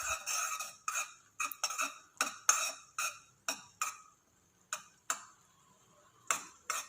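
A spoon clinking and scraping against a pan while thickening jaggery syrup is stirred constantly over low heat to keep it from sticking. The clinks come about three a second, each ringing briefly, with short pauses about four seconds in and again about five and a half seconds in.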